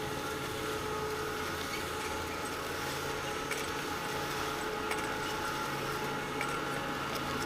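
Chairlift running, a steady mechanical hum with a few high tones over a hiss of air, and a few faint clicks.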